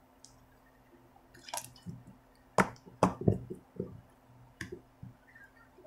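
Freshly activated white glue slime squishing as it is pulled apart and pressed by hand, with a string of short wet pops and clicks, the loudest about two and a half to three and a half seconds in.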